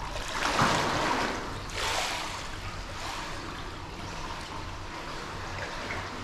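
Pool water splashing as a swimmer pushes off from the wall into a glide: two surges of splashing in the first two seconds, then a steady wash of moving water.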